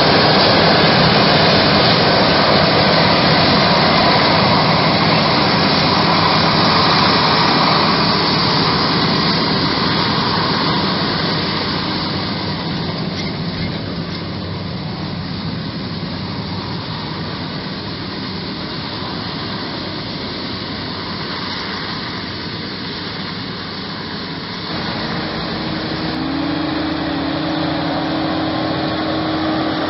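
Krone Big X 1100 forage harvester chopping maize, with the tractors hauling its silage trailers running close by: a steady, loud mechanical drone that eases off after about twelve seconds. Near the end a tractor engine's steady tone comes up close, with a brief change in pitch.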